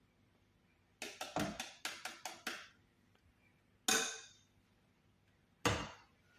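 Hard kitchenware knocking and clinking as it is handled: a quick run of about eight sharp knocks, then two louder single clinks a couple of seconds apart.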